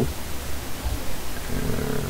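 Steady background hiss with a low hum underneath: the recording's own noise floor between the narrator's words.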